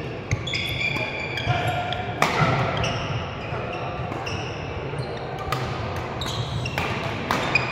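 Badminton doubles rally on an indoor court: shoes squeaking on the court floor again and again, with several sharp racket hits on the shuttlecock, over a low murmur of voices in the hall.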